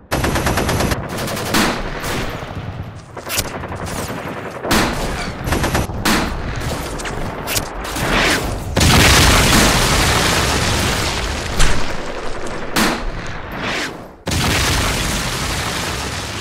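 Battle sound effects: continuous machine-gun and rifle fire, a dense crackle of many sharp shots. About two seconds from the end a sudden loud blast starts and slowly fades away.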